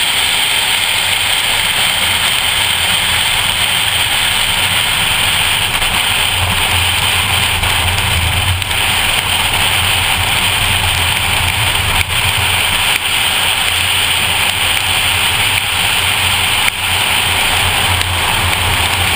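A 2014 Ford Focus ST's turbocharged four-cylinder engine droning at track speed, heard from inside the cabin under a loud hiss of wet-road spray and heavy rain. The sound dips for a moment twice, about twelve seconds in and again near the end.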